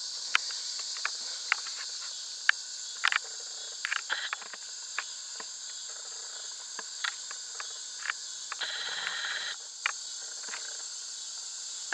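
Steady high-pitched chorus of insects chirring, with scattered light clicks and taps throughout.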